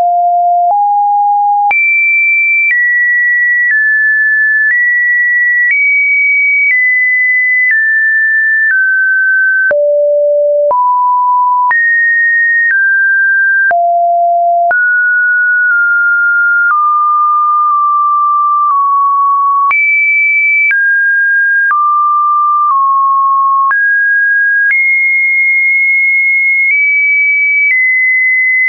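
Electronically generated pure sine tone that jumps to a new steady pitch about once a second, wandering between a middle and a high pitch, with a faint click at each change of pitch.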